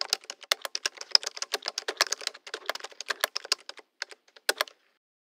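Rapid typing on a computer keyboard: a quick, steady run of key clicks that thins out about four seconds in and ends with two last keystrokes.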